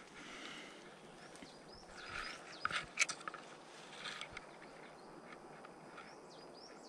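Outdoor ambience with scattered short, high bird chirps. Rustling and a few sharp knocks or taps come about three seconds in, and the knocks are the loudest sounds.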